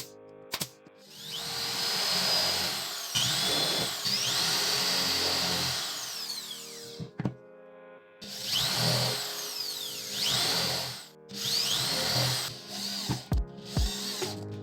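A handheld electric power tool working wood, its motor run in three bursts with a whine that rises and falls, followed by a few sharp knocks near the end.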